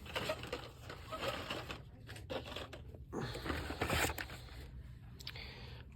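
Rustling and light scraping of carded Hot Wheels packages being handled, with a few soft clicks. The rustle grows louder for about a second, roughly three seconds in.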